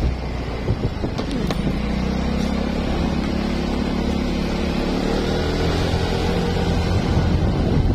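Motor vehicle engine running under road and wind rumble, its pitch climbing gradually as it accelerates.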